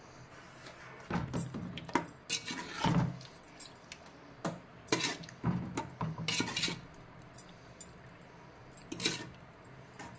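Steel spoon stirring mutton offal in thick green masala inside a metal pressure cooker. It scrapes and clinks against the pot's sides and bottom at irregular intervals, busiest over the first seven seconds, with a few more knocks about nine seconds in.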